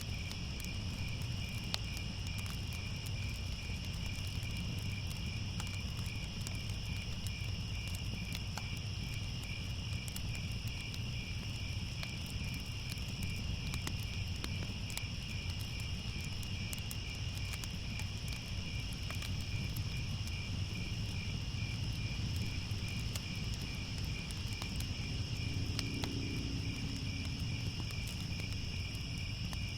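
Crickets chirping in a steady, unbroken chorus over a low rumble, with faint scattered crackles from a fire.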